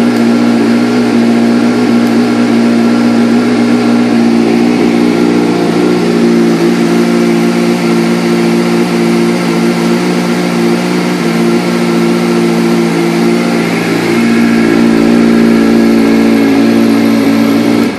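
2005 Kawasaki Ninja ZX-6R 636's inline-four engine idling steadily.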